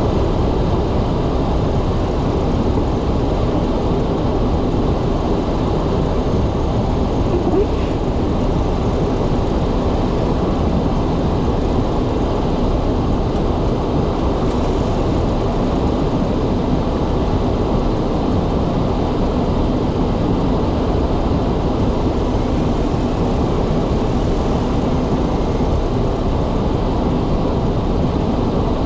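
A car driving on a snowy road: a steady rumble of tyre and engine noise that holds an even level throughout.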